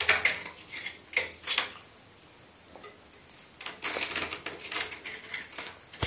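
Scraping and light metallic clinking of a hand tool worked inside the hacksaw-cut end of a copper pipe to remove the burrs. It comes in two spells, with a pause of a second or two in the middle.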